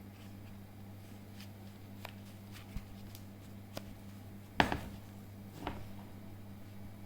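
Handling sounds: scattered light taps and clicks, with one sharper knock a little past halfway and a smaller one after it, over a steady low electrical hum.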